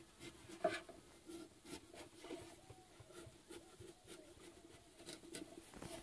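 Knife cutting through a pumpkin's rind and flesh, faint irregular scraping and clicking cuts, with one sharper click a little under a second in.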